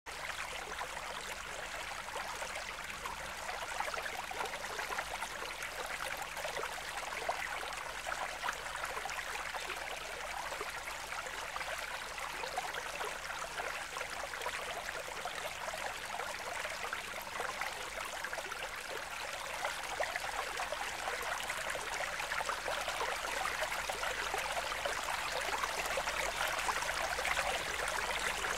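Steady trickle and splash of running water, thick with fine crackling droplets, growing slightly louder near the end.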